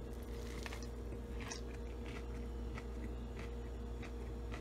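A person chewing a mouthful of a fried, panko-breaded pork tenderloin sandwich, with irregular crisp crunches from the breaded crust.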